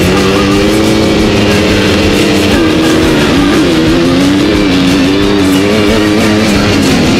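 Kawasaki 250 motocross bike's engine revving hard under racing load, its pitch holding and then rising and falling with the throttle and gear changes about halfway through. Rock music plays along with it.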